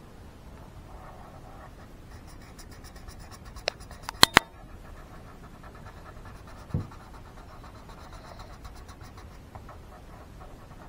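Felt-tip colouring pen scratching on paper in quick back-and-forth strokes, colouring in a drawing. A quick cluster of sharp clicks about four seconds in, and a short low knock near seven seconds.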